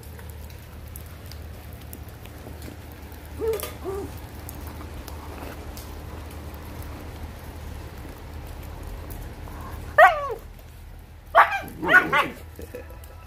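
Lycan Shepherd puppies making high-pitched yelps and yips: two soft short cries about three and a half seconds in, then a loud yelp that falls in pitch at about ten seconds and three quick loud yips soon after.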